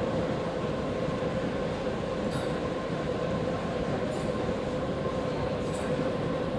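Steady background din of a busy exhibition hall, with a steady hum running through it and a few faint, brief high clicks.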